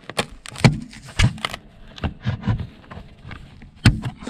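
Plastic trim of a car's rear ceiling lamp being handled and pried at its clips: an irregular run of clicks and knocks, with a louder knock near the end.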